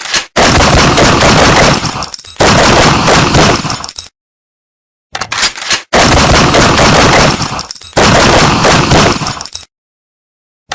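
Revolver sound effect: a short run of clicks from the gun's mechanism, then two long stretches of loud, rapid gunshots. The sequence plays twice, with a second of silence between.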